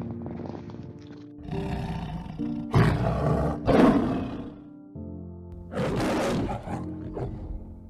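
Three loud, noisy calls from a large animal, at about the third, middle and three-quarter marks, over background music with held notes.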